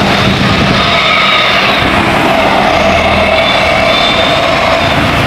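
Large tour bus passing close by: loud, steady engine and road noise with a low hum, and faint high tones over it in the middle.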